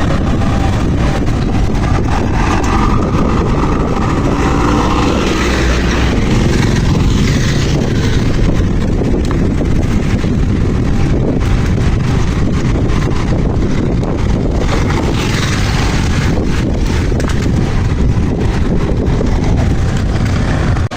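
Steady wind rumble on the microphone from riding a bicycle, over a constant wash of road and traffic noise.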